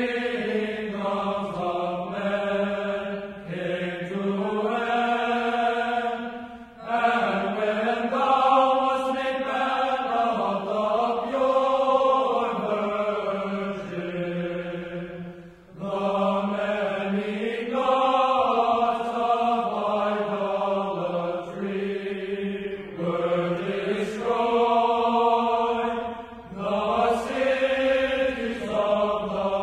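Background music of slow vocal chant: long sung phrases that rise and fall gently in pitch, separated by brief pauses for breath.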